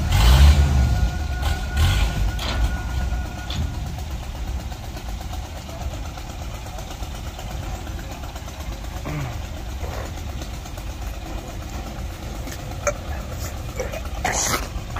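Engine of a two-wheel walking tractor with cage wheels running steadily at a low rumble. It is loudest in the first second, as if just started.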